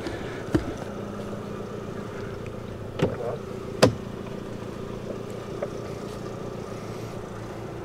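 Lada Vesta's four-cylinder engine idling steadily, with three short sharp clicks as the driver's door handle and latch are worked and the door swings open, the loudest just before four seconds in.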